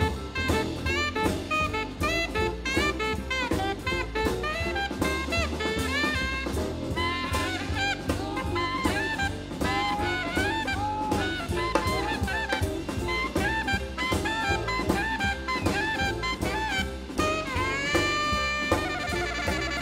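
Jazz alto saxophone (1968 Selmer Mark VI) soloing in quick, bending runs over a swinging big-band rhythm section of drum kit and walking bass. About two seconds before the end, the saxophone slides up into a long high held note.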